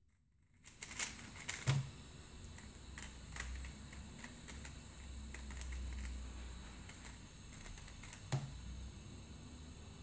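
A 3x3 speedcube (Angstrom Valk 3 Elite M) being turned by hand: scattered quick clicks of its layers snapping over a steady hiss, with a sharper knock about eight seconds in.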